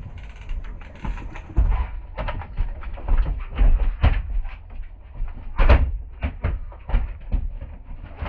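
Wind buffeting the microphone, with a string of irregular knocks, thumps and splashing as a hooked fish is gaffed at the side of the boat and hauled aboard.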